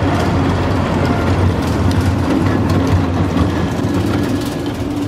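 Slinky Dog Dash's Mack Rides coaster train running along its steel track and passing close by: a steady low rumble with scattered wheel clicks and clatter.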